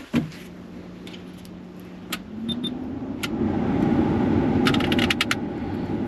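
Ford Transit Connect heater blower fan switching on with the new control panel connected. A steady motor hum rises about two seconds in into a growing rush of air from the vents. Near the end there is a quick run of clicks from a heater control knob being turned.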